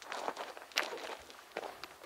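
Footsteps on loose stony gravel, a few irregular crunching steps.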